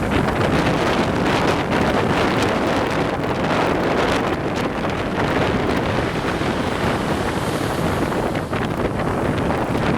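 Strong wind blowing across the microphone: loud, steady, rumbling noise that buffets it throughout.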